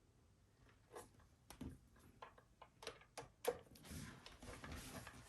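Faint, scattered clicks and light knocks of bike parts and hardware being handled during assembly, followed by a soft rubbing scrape from about four seconds in.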